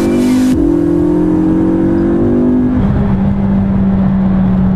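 McLaren MP4-12C's twin-turbo V8, heard from inside the cabin, pulling under acceleration with a slowly rising pitch and a brief dip about half a second in. About three seconds in it eases off to a steady, lower drone.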